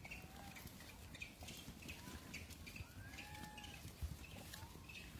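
Rhesus macaques feeding in a troop: faint coo calls that rise and fall in pitch, the longest about three seconds in, among short high chirps and scattered small clicks.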